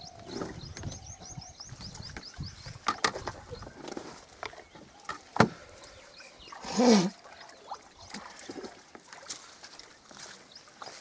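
Scattered light clicks and knocks of syringes and small plastic medicine boxes being handled. A quick run of high chirps comes near the start, and a short pitched, wavering call, the loudest sound, about seven seconds in.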